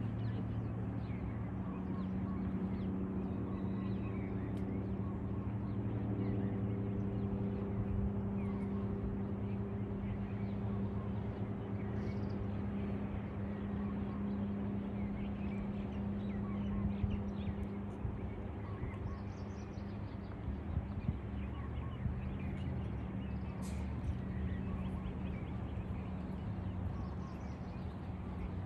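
Scattered bird chirps and calls over a steady low hum.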